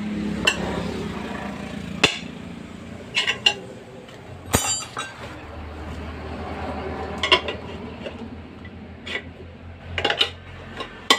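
Steel tyre levers clinking and knocking against a motorcycle wheel rim as the tyre bead is worked off the rim, in irregular sharp metallic strikes a second or two apart.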